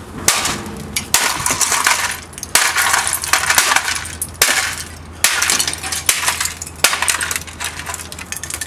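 A claw hammer smashing an old mobile phone on asphalt: a series of sharp blows, roughly one a second, each followed by the crackle and clatter of breaking plastic and scattering pieces.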